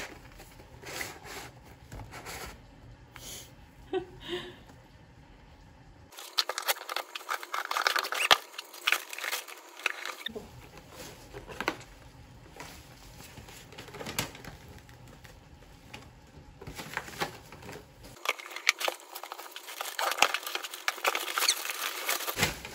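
Light rustling, tapping and clicking of small objects being handled, made up of several short spliced-together clips.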